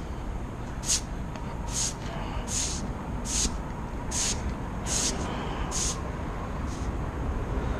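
Short, hissing scraping strokes repeating evenly about once every 0.8 seconds, nine in all, the last one fainter, over a steady low rumble.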